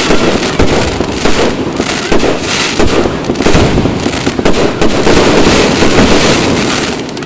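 Aerial fireworks going off in a dense barrage, many loud bangs in quick succession over a continuous rumble of explosions, dying down near the end.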